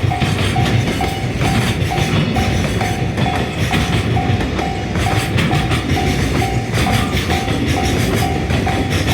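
Japanese level crossing alarm ringing its steady two-tone clang, about two strokes a second, while a freight train runs past with its wheels clacking over the rail joints.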